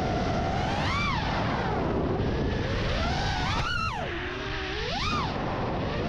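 Freestyle FPV quadcopter's brushless motors whining over a steady rush of prop wash and wind. The pitch sweeps sharply up and back down three times as the throttle is punched and released.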